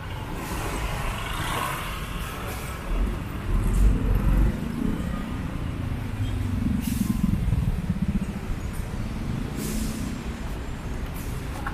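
Road traffic passing close by: a steady low rumble of vehicle engines and tyres, with two short hisses in the second half.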